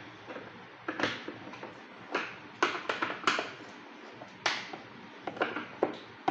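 Irregular sharp clicks and clacks of a screwdriver and the plastic casing of a Panasonic vacuum cleaner being handled as its four housing screws are taken out.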